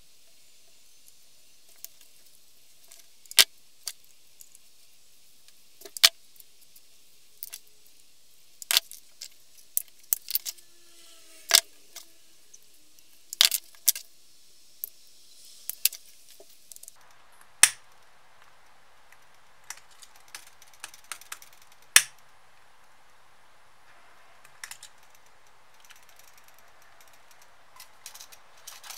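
Handling noises from a thick leather holster with metal snap fasteners, a stitching needle and a brass compass: scattered sharp clicks and light metallic clinks at irregular intervals.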